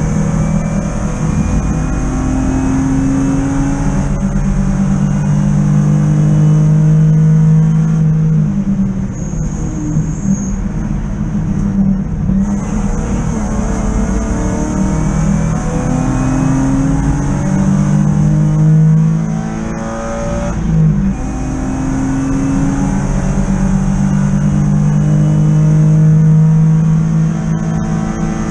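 Inside the cabin of a BMW 323i E36 race car, its straight-six engine running hard on track: the pitch climbs again and again as it accelerates through the gears, broken several times by lifts and downshifts into corners.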